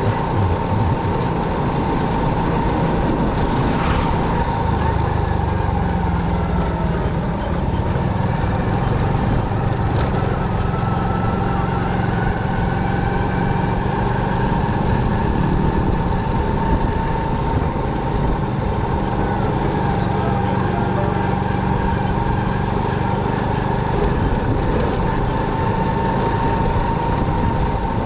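Motorcycle running steadily while being ridden, engine and road noise at an even level, with a steady high tone over it.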